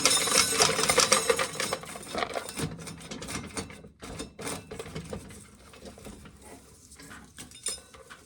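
Corn sheller rattling: a dense clatter of rapid clicks, loudest in the first two seconds, then thinning out and quieter.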